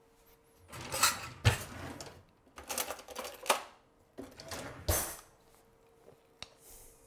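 A serving spoon scraping and knocking against a dish as cooked rice is spooned and spread, in three short bursts of scraping with a sharp knock in the first and the last.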